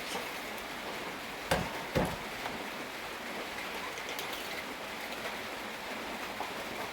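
Steady rain falling, an even hiss. Two sharp knocks come about a second and a half and two seconds in.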